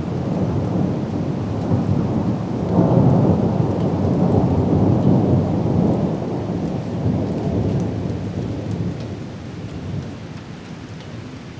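Thunder rolling in a rainstorm: a long low rumble that swells about three seconds in and then slowly dies away, over steady rain with scattered raindrop ticks.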